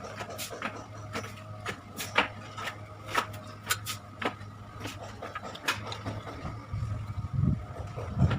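Irregular sharp clicks and light knocks of hand work over a steady low hum, with dull low thumps coming in near the end.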